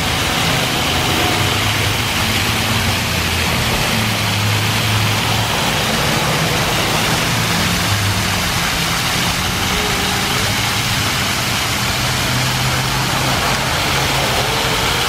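Artificial waterfall: several streams of water splashing steadily into a shallow pool, with a faint low engine hum underneath.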